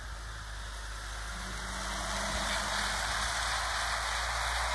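OO gauge model train running along the garden track: a steady rolling rumble of wheels on rail with a faint motor hum, growing louder as it approaches.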